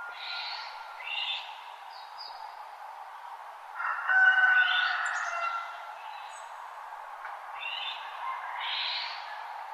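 Dawn chorus of wild birds in a forest, several birds chirping and calling over a steady background hiss, with one louder call about four seconds in.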